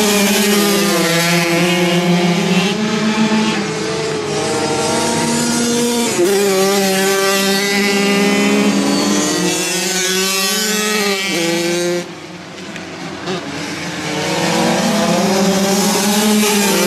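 Several flat-track racing motorcycles running hard in a pack, their engine notes rising and falling and overlapping as they race. The sound drops off suddenly about twelve seconds in, then builds back up.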